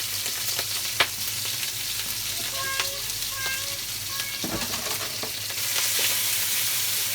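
Ground meat sizzling and crackling as it fries in smoking-hot oil in a wok, with a sharp click about a second in and a few brief squeaks around the middle. The sizzle grows louder near the end.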